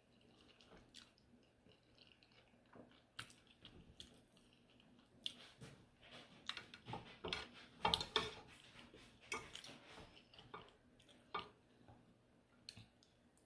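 Close-miked chewing of a mouthful of chicken enchiladas: soft, wet mouth smacks and clicks, sparse at first and busiest in the middle.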